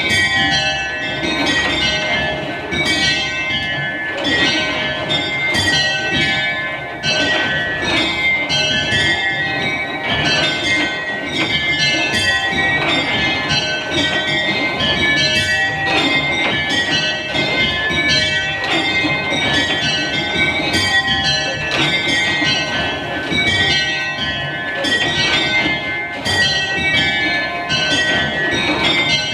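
A mini-ring of very light, high-pitched hand-rung tower bells (tenor 15 lb 6 oz) ringing changes in a method on six bells: a fast, unbroken stream of bell strikes whose order keeps shifting.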